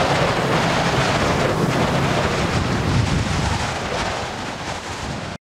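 Storm sound effect: wind and rushing water, a steady loud rushing noise that cuts off abruptly near the end.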